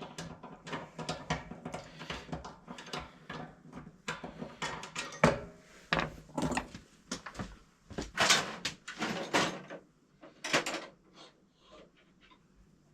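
Rummaging among hand tools and hardware: a string of clicks, knocks and clatters, busy for about ten seconds and then thinning out.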